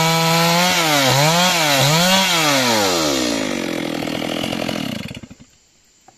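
Stihl MS 382 two-stroke chainsaw at full throttle cutting lengthwise along a log, its revs dipping twice under load and recovering. It then drops back to idle and stops about five seconds in.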